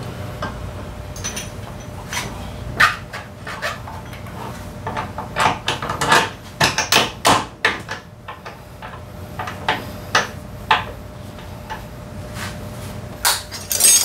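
Hand tools and metal parts clicking and clinking at a Honda PCX 125's front wheel hub during a brake disc replacement: irregular light knocks, busiest about five to eight seconds in and again near the end.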